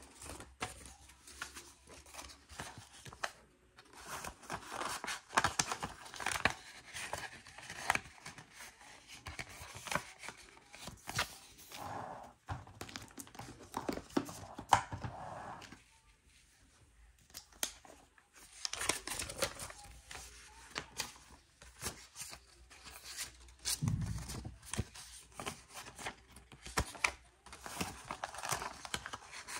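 Paper envelopes and banknotes being handled, rustling and crinkling irregularly, with a short lull just past the middle and a soft thump about two-thirds through.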